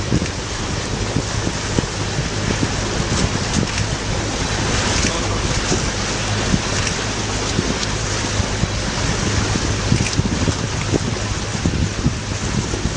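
Water washing and splashing against rocks in a continuous rush, with wind buffeting the microphone and a steady low hum underneath.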